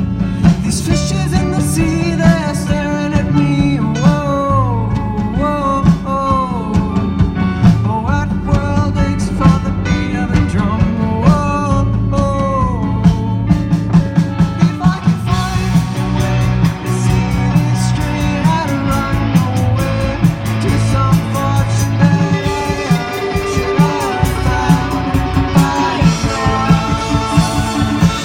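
Rock music with guitar and drums. A melody line slides up and down through the first half.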